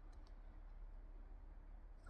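Near silence: a faint steady low hum with two or three faint clicks in the first half-second.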